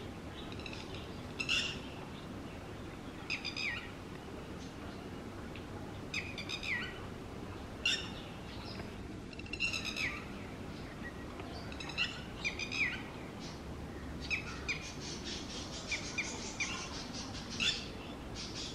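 Red-wattled lapwing giving shrill alarm calls: short runs of sharp notes that fall in pitch, repeated every couple of seconds. They are the calls of a parent defending its chick against a trespassing peafowl.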